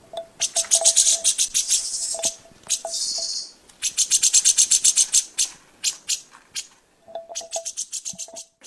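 Cucak jenggot (grey-cheeked bulbul) calling: several runs of rapid, dry, rattling notes, about eight a second, with a few short lower notes among them.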